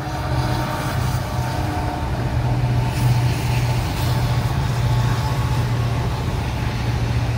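Locomotive hauling a container freight train past, its engine giving a steady low drone.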